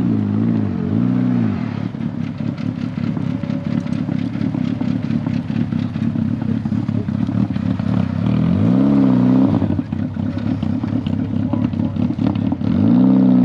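A car engine idling roughly and being revved in short throttle blips: two quick blips at the start, one about nine seconds in and one more near the end, each rising and falling in pitch.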